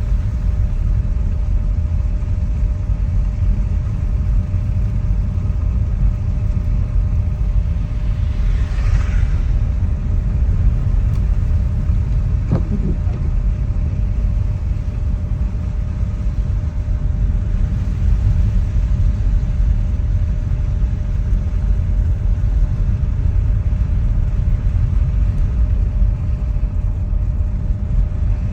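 Tesla Model Y driving on a snowy road: a steady low rumble of tyre and road noise, with no engine note. A brief faint swish comes about a third of the way in, and a short click follows a few seconds later.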